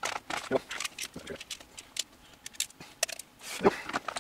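Plastic clicks and knocks of a handheld radio-control transmitter's plastic case being handled and its back shell pressed into place, at irregular moments.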